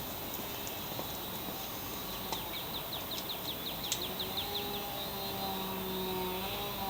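Outdoor background with a bird's rapid trill of short high chirps in the middle, and a faint steady hum that comes in about four seconds in.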